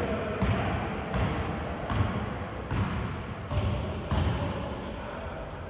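A basketball being dribbled on a court floor: repeated thuds about every three-quarters of a second, over the steady background noise of the gym.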